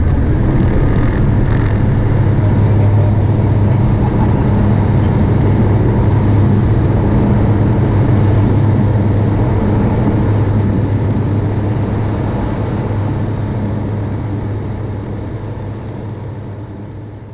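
Light sport aircraft's Rotax 912 engine and propeller droning steadily at takeoff power, heard from inside the cockpit. The sound fades away over the last few seconds.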